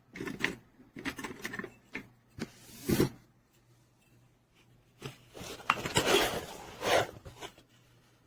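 Handling noises: objects being picked up and moved about, rubbing, scraping and knocking, in two spells with a quiet pause of about two seconds between.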